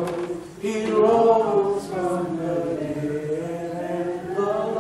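A man's voice chanting a sermon in long, sung, drawn-out phrases: the melodic 'whooping' style of Black Baptist preaching.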